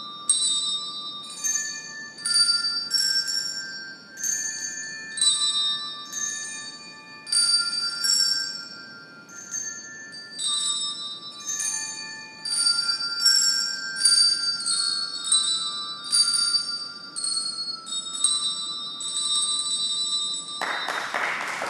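Tuned handbells played one note after another as a simple melody, each note ringing on and overlapping the next. Applause breaks out about a second before the end.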